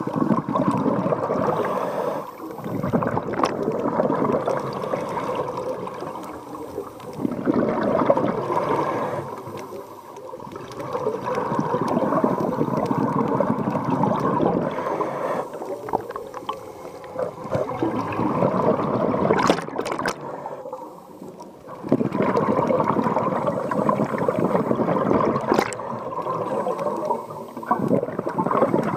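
Scuba diver's regulator exhaust, heard underwater: bubbling rushes lasting a few seconds each, with short quieter gaps between them as the diver breathes in and out.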